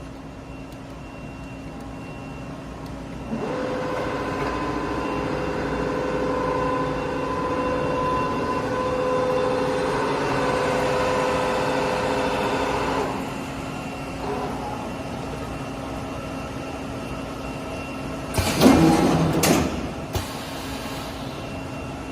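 Amada DCT-2045 sheet-metal shear running with a steady machine hum. A louder, steady-pitched humming sets in a few seconds in and drops away about halfway through. Near the end a loud clattering clank lasts about a second.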